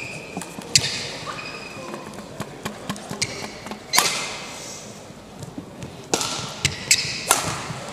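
Badminton rackets striking a shuttlecock during a rally, a series of sharp cracks with the loudest about four seconds in and quicker exchanges near the end, with brief shoe squeaks on the court.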